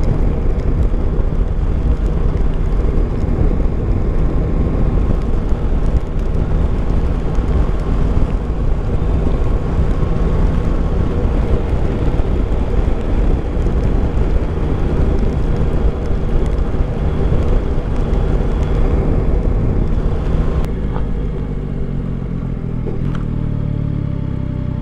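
Yamaha Tracer 9 GT's three-cylinder engine running at road speed, heard from a helmet camera with wind and road noise. About twenty seconds in the sound drops a little as the bike slows for a junction.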